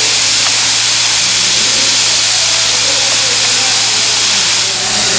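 Steady, loud hiss of steam jetting from the vent of a pressure cooker boiling hard on a high gas flame.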